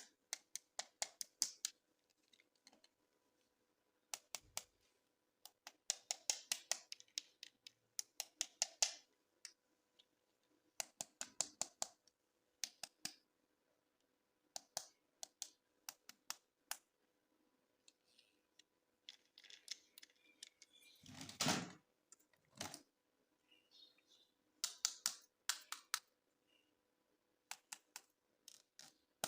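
Hands handling plastic toy packaging: quick runs of light clicks and taps separated by short pauses, with a louder rustle of plastic about two-thirds of the way through.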